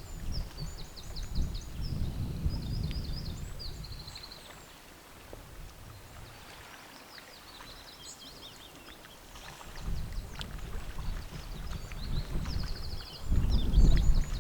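Gusts of wind buffeting the microphone, dying down in the middle and picking up again near the end. Over them a small songbird sings repeated high, rapid trills.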